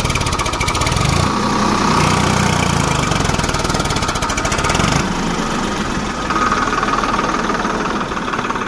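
Farmtrac 45 tractor's three-cylinder diesel engine running steadily as it slowly moves a loaded trolley. About five seconds in, the engine note becomes lighter.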